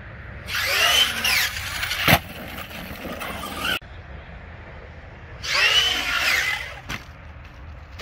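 Arrma Kraton RC monster truck's brushless electric motor whining in two bursts of throttle, its pitch rising and falling, the first about three seconds long and the second about a second and a half. A sharp knock about two seconds in, likely the truck landing or hitting the dirt.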